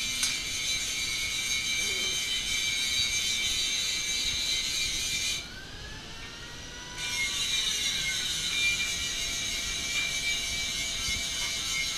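Charcoal forge fanned by a hand-worked bellows: a steady rushing hiss of air blowing through the glowing coals. The blast cuts out for about a second and a half near the middle, then comes back.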